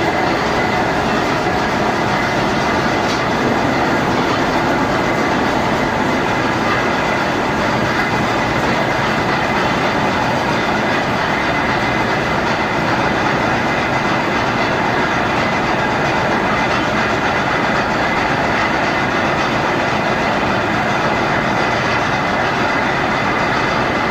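Metalworking machine tool running steadily, a continuous mechanical noise with a faint high tone held throughout, as it machines a steel shaft.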